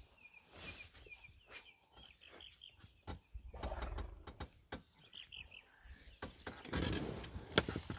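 Small birds chirping in short repeated phrases, with scattered clicks and knocks. Two brief bursts of rustling noise, one in the middle and a louder one near the end.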